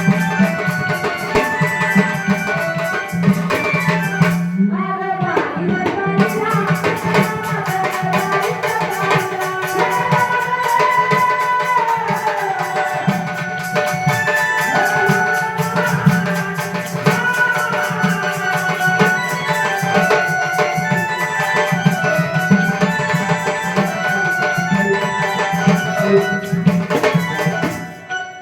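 Indian devotional music: tabla and jingling hand percussion keeping a fast rhythm under a melodic line and a steady low drone.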